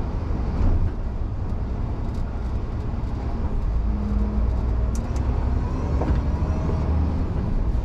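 Scania R450's diesel engine running with a steady low drone under road noise, heard from inside the truck's cab.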